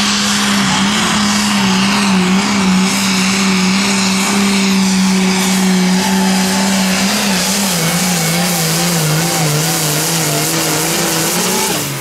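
Hot farm tractor's diesel engine running hard under full load pulling the sled, a loud steady drone. Its pitch drops a little past halfway and wavers up and down, then it falls off sharply at the very end.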